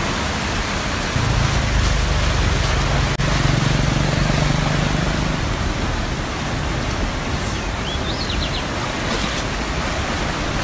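Floodwater of a swollen river rushing past the bank: a loud, steady roar of moving water.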